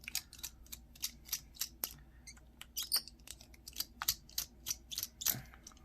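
Irregular sharp little plastic clicks and snaps, several a second, as the Samsung Gusto flip phone's display housing is pried open.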